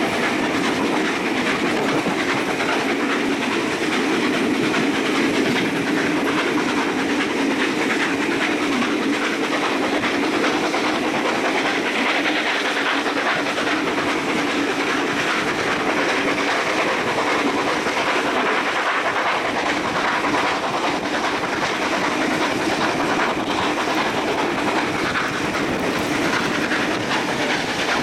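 Passenger carriage of a steam-hauled train rolling out of a station, heard from inside the carriage: steady running noise of the wheels on the rails.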